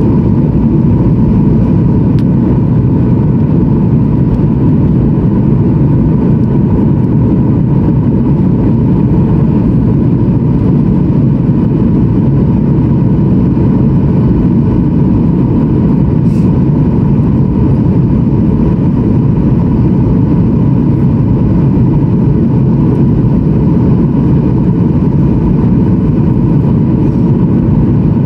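Steady cabin noise inside a Boeing 737-900ER: the rush of air and hum of its CFM56-7B engines, loud and unchanging, with a thin steady tone running through it.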